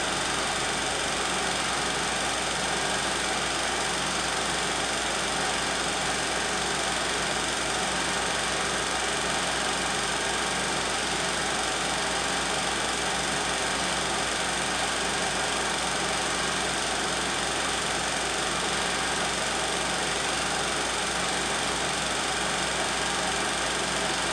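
16mm film projector running: a steady mechanical whirr and hum.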